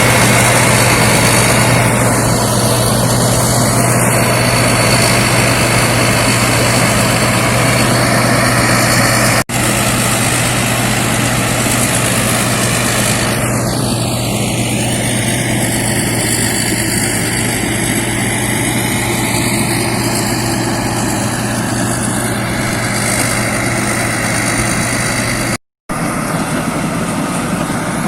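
Thai Seng Kan Kaset 'Chao Phayu' rice combine harvester running steadily while harvesting, a loud engine noise with a constant low hum. The sound cuts out for an instant twice, about a third of the way in and near the end.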